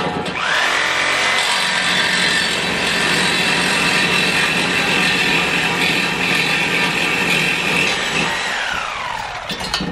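Electric power saw cutting through a truck's steel exhaust tailpipe. Its motor whine rises as it spins up about half a second in, holds steady under the cutting noise, then winds down and stops near the end.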